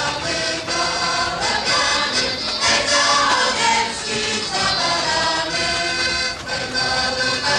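Music with a group of voices singing together in a choir-like song.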